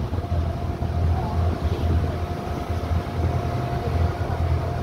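Small wooden boat's engine running steadily under way: a low throb with a faint steady whine above it.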